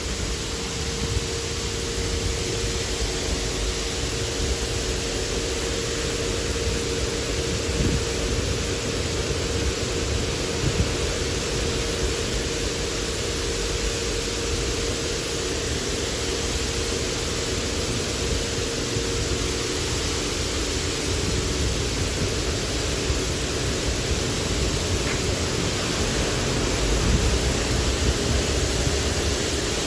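High-pressure water jets of a Mark VII touch-free car wash spraying over a car, a steady hiss of spray. A faint steady hum runs underneath and fades out about two-thirds of the way through.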